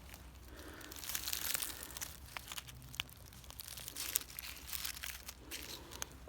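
Soft, irregular crunching and crackling of dry forest-floor litter: twigs, leaves and needles being stepped on or disturbed.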